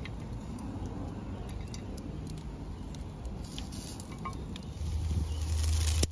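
Metal kebab skewers clinking lightly against the grill rack as they are turned by hand over a wood fire, with scattered crackles from the burning wood. A low rumble comes in near the end.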